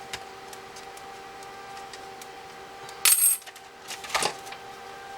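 A small metal tool clinking onto a hard work surface: one bright, ringing clink about three seconds in, then a second, shorter clatter about a second later, over a steady faint electrical hum.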